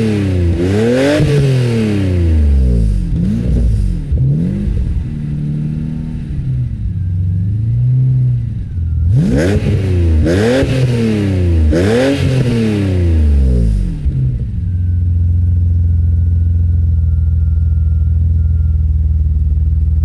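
BMW 850CSi's 5.6-litre V12 exhaust, heard at the tailpipes, blipped again and again: several sharp revs up and back down, some of them smaller. About three-quarters of the way through it settles to a steady idle with a faint high whine over it.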